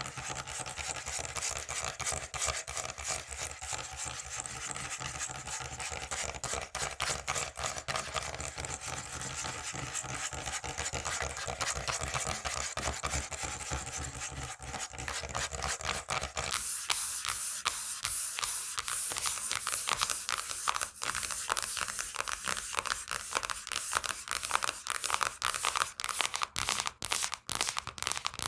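Fingernails scratching and tapping rapidly on textured objects, a dense run of quick little scrapes and taps. About two-thirds of the way in, the sound switches abruptly to a thinner, crisper scratching on a different surface.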